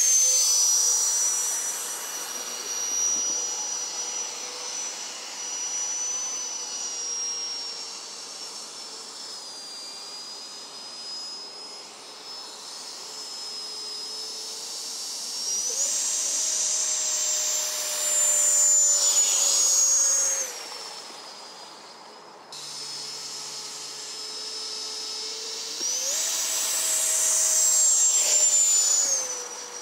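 70 mm electric ducted fan of an RC jet boat, a high-pitched whine as the boat runs across the water. Twice the pitch jumps up to full throttle and grows loudest for a few seconds, then drops back as the throttle eases.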